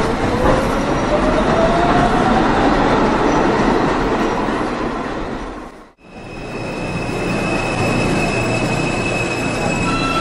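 New York City subway train running, its motor whine rising steadily in pitch over rail noise. About six seconds in the sound cuts out abruptly and resumes as another stretch of train noise with steady high-pitched whines.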